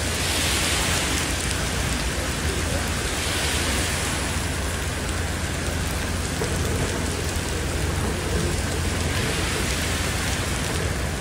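Heavy rain falling on a wet street, with a steady low rumble underneath. Car tyres hiss through standing water as vehicles pass, swelling near the start, about three seconds in, and again near the end.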